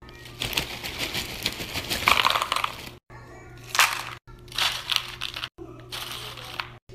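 Tortilla chips poured from a crinkly chip bag and handled onto a plastic platter: bag crinkling and chips crackling and rattling in one long stretch over the first three seconds, then several shorter bursts.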